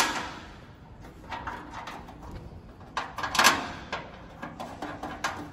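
Short clicks and knocks of small parts being fitted by hand into the sheet-metal cabinet of a grill cart, with a louder knock about three and a half seconds in.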